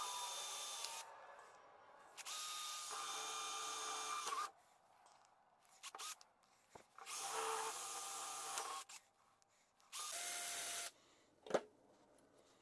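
Cordless drill boring holes through a PVC pipe cap, run in four short bursts of steady motor whine, the pitch sagging each time the trigger is let go. A single sharp click comes near the end.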